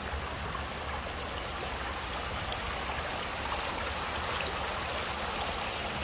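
Shallow creek water rushing steadily over rocks and a low spill beside a stepping-stone crossing.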